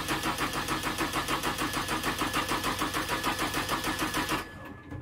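Brand-new Yanmar marine diesel engine running with an even, rapid pulsing beat, then cutting out suddenly about four and a half seconds in.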